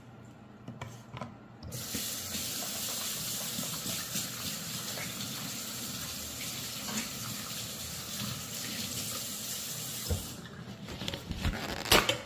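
Kitchen faucet running into a stainless-steel sink as hands are rinsed under the stream. The water comes on a little under two seconds in and stops about ten seconds in, followed by a few light knocks.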